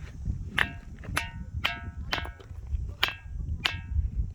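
A ringing stone struck again and again with a hand-held rock, about eight strikes at roughly two a second. Each hit gives a short metallic ring of several tones, like a hollow metal vessel rather than rock.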